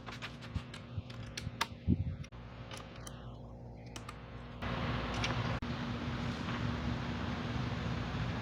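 Irregular light clicks and taps of a hex key and small bolts being worked by hand, with one heavier knock about two seconds in. A little over four and a half seconds in, the sound cuts abruptly to a louder steady hum.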